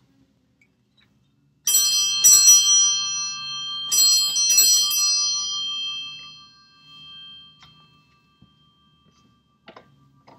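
A small bell struck four times in two pairs, its clear ringing fading out over a few seconds, marking the start of the service. A faint click follows near the end.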